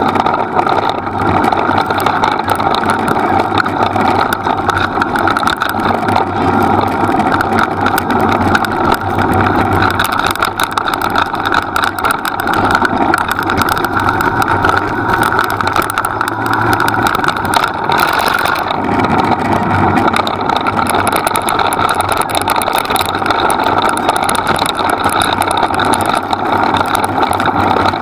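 Steady rolling noise of a dog-drawn rig moving fast along a dirt track, wheels on the ground mixed with wind on the microphone.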